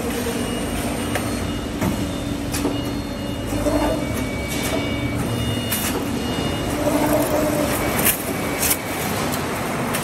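Full-auto multi-tube bending machine for serpentine heat exchangers running: a steady motor hum with about four sharp clacks, two of them close together near the end.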